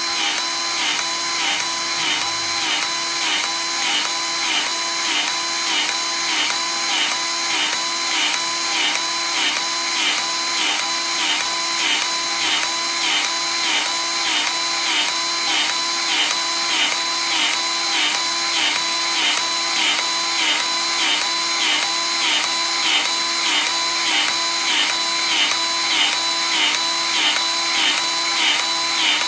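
Cordless battery-powered grease gun running continuously with its trigger held, its motor pulsing evenly with each pump stroke. It is forcing grease into a water-filled tank to build pressure for a hydrostatic test.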